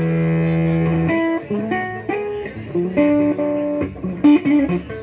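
Electric guitar through an amplifier: a chord held ringing for about a second, then a run of single picked notes.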